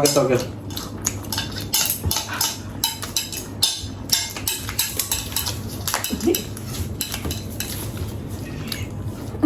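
Cutlery clinking and scraping against plates while noodles are eaten: a steady run of irregular, quick clicks.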